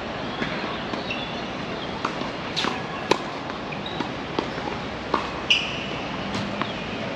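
Tennis ball struck by rackets and bouncing on the court during a rally: sharp pops about once a second, over a steady background hum.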